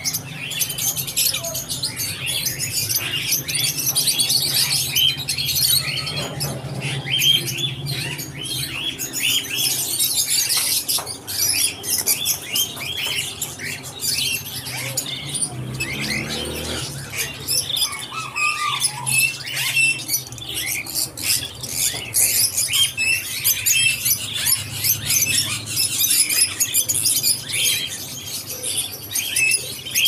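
A dense chorus of many caged birds, small parrots such as cockatiels among them, chirping and calling over one another without pause, with a low steady hum underneath.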